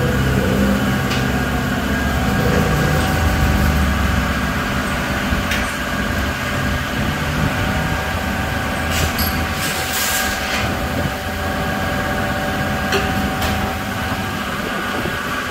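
Honda Vario 160 scooter's single-cylinder engine idling steadily with the bike on its stand, a few light clicks and knocks over it.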